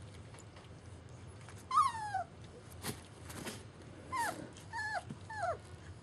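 German Shepherd puppy whining and yelping: one longer call falling in pitch about two seconds in, the loudest sound here, then three short yelps close together near the end.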